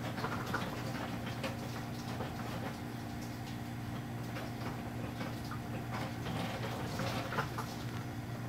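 A steady low hum with scattered faint clicks and light taps over it.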